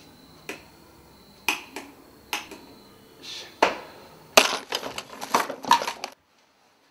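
Separate clicks and knocks about a second apart, the first as a wall light switch is pressed. Then comes a quick, loud clatter of small objects rummaged through by hand on a table, which cuts off abruptly.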